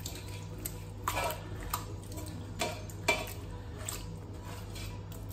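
Whole mutton leg being rubbed with marinade by hand inside an aluminium pot: the meat and hand knock and scrape against the pot's metal sides about half a dozen times, at irregular intervals.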